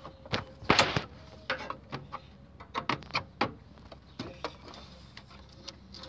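Flat screwdriver prying at a washing machine's plastic front control-panel cover, a string of sharp clicks and knocks as the cover's plastic locking clips are levered free; the loudest clatter comes about a second in.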